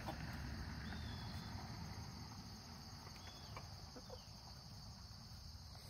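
Faint steady insect chorus, a high even trill, over a low rumble, with a few brief faint high chirps about a second and about three seconds in.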